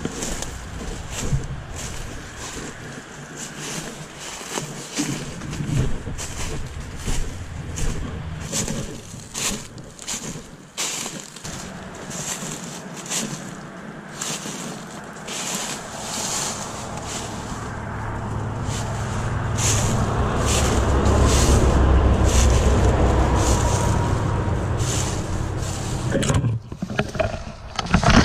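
Footsteps crunching through dry fallen leaves at a walking pace, one or two steps a second. From about halfway through, a low rumble of wind on the microphone swells to the loudest sound and fades again near the end.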